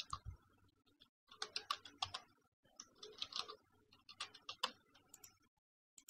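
Typing on a computer keyboard: three short runs of quick keystrokes.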